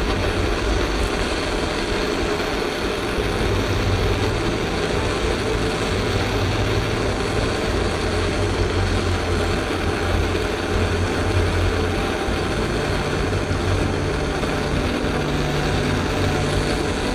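Handheld gas torch flame burning steadily, heating the steel action of an old shotgun for a brazed repair.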